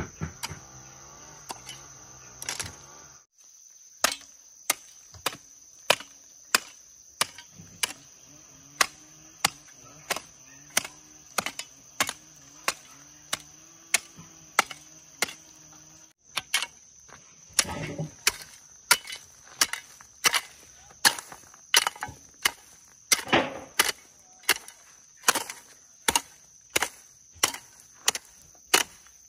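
Repeated sharp chopping blows, about one and a half to two a second, with two short breaks. A steady high-pitched tone runs underneath.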